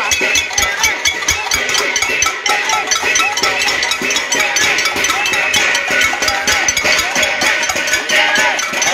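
Saucepans being banged in a pot-banging protest, a rapid, continuous metallic clatter of many strikes a second, with voices calling out underneath.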